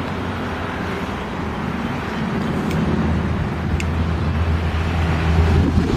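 Road vehicle on the move: a steady low engine hum over tyre and road noise, growing louder from about halfway through.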